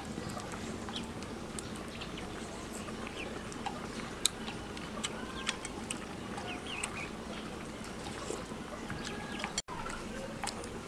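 Steady outdoor background noise with scattered small clicks and a few faint chirps, broken by a brief dropout about three-quarters of the way through.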